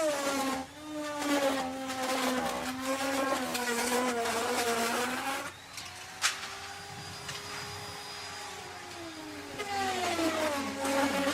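Electric wood router cutting wood. The motor's whine drops in pitch under load with loud cutting noise for about five seconds. It runs lighter at a steadier, higher pitch, then bogs down again in a second cut near the end.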